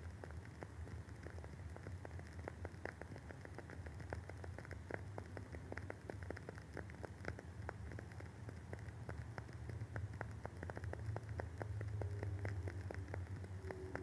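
Wooden wick of a WoodWick candle burning, crackling with rapid, irregular small pops, over a low steady hum.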